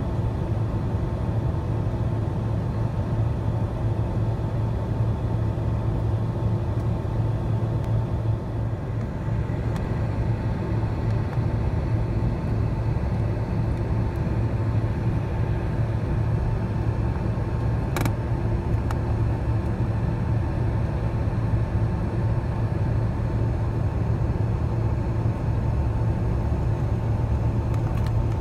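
Cabin noise of a Boeing 767-300ER taxiing: a steady low rumble from the engines at taxi power with a faint steady whine over it. A single sharp click about two-thirds of the way through.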